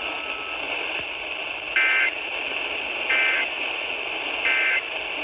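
Emergency Alert System end-of-message signal: three short bursts of warbling SAME data tones, each a fraction of a second, about 1.3 s apart, over steady radio hiss. It marks the end of the warning broadcast.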